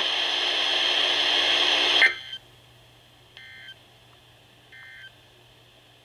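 Weather radio speaker: the warning voice ends and a loud steady static hiss runs for about two seconds, then cuts off. Three short electronic data bursts follow, a little over a second apart: the EAS end-of-message tones that close the alert.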